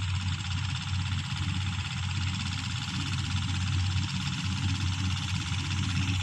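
Combine harvester running steadily under load: a constant low engine hum with a dense mechanical rattle and hiss from the threshing machinery.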